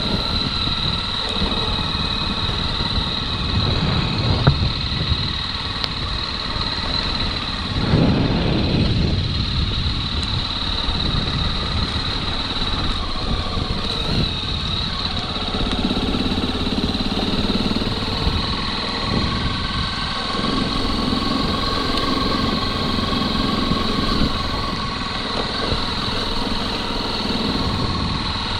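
Motorcycle engine running while riding a dirt road, heard from on board. The engine note shifts with the throttle, with a louder surge about eight seconds in.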